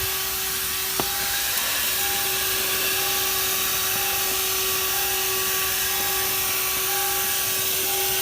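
A HOTOR corded 12 V handheld car vacuum running steadily and sucking up loose debris, a constant airy rush over a steady motor hum. A single short click sounds about a second in.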